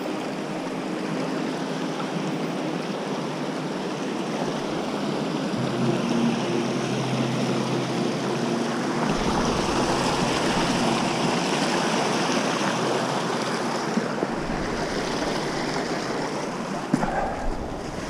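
A rocky woodland stream rushing over and between boulders: a steady hiss of flowing water. A low rumble joins about halfway through.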